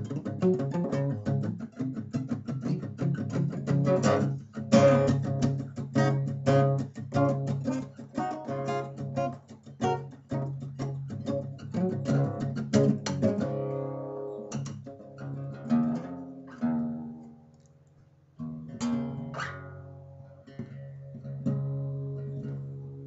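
Solo acoustic guitar: fast, busy strumming and picking for about the first thirteen seconds, then slower chords left to ring and die away almost to silence, before quick strumming starts again about eighteen seconds in.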